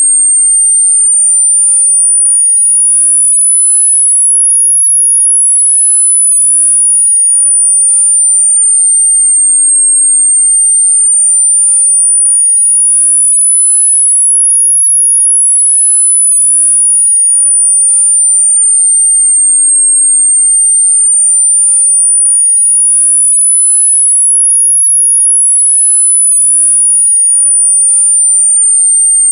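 A single very high-pitched pure tone, a tinnitus-masking sweep between 8.5 and 10 kHz. It glides slowly up and down at a steady level, about once every ten seconds.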